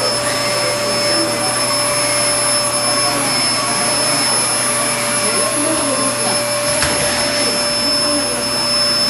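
Vacuum cleaner running steadily, a constant whine over its motor noise, with a brief knock about seven seconds in.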